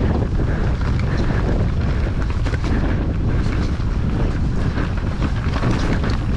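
Wind buffeting the microphone on a mountain bike riding a wet, snowy trail, a steady low rumble over tyre noise, with frequent small knocks and rattles from the bike over rough ground.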